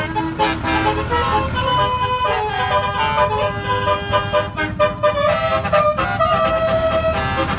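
Basuri telolet horn on a tour bus playing a melody of quick stepped notes over the low, steady running of the bus's engine.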